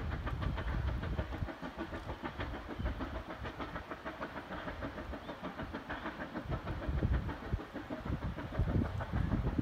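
Vale of Rheidol Railway No 7, a narrow-gauge 2-6-2 tank steam locomotive, working hard up the climb to Devil's Bridge: a rapid, steady beat of exhaust chuffs heard across the valley over a low rumble.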